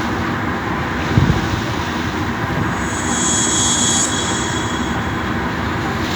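Steady rumbling noise of a ferry under way at sea, with a brief high hiss about three seconds in.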